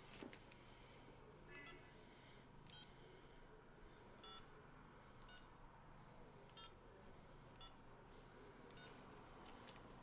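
Mobile phone keypad beeping faintly as a number is dialed: short beeps, one per key press, spaced unevenly about once a second.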